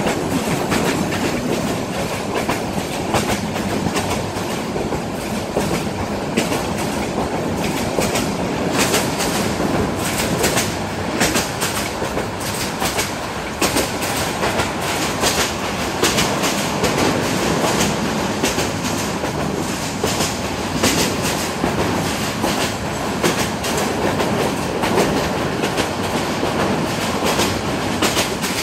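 Train running along the track, its wheels clattering over the rail joints in a steady clickety-clack, heard from on board.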